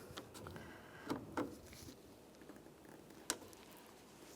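Faint scraping and small plastic clicks of a thin trim tool prying at the cable end on the back of a car's interior door handle, with one sharper click a little over three seconds in.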